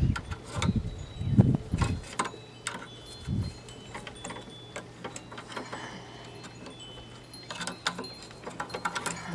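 Pliers and metal parts clinking and tapping while working on a lawn mower engine. There are scattered light clicks and a few dull knocks, bunched in the first few seconds, with faint metallic ringing.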